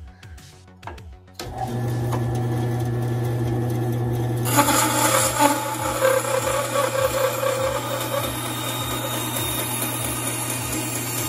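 WEN 3962 10-inch bandsaw: its motor hum comes in about a second and a half in and runs steadily. A few seconds later the blade starts cutting a strip of wood, and the noise of the cut goes on over the hum, rising and falling as the board is fed.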